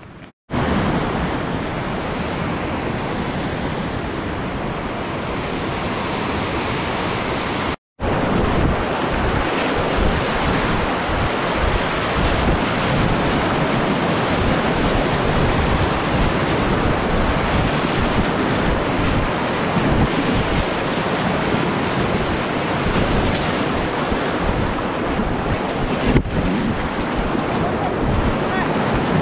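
Whitewater rapids rushing steadily around an inflatable kayak, mixed with wind buffeting the camera microphone. The sound drops out completely for a moment just before eight seconds in, then carries on.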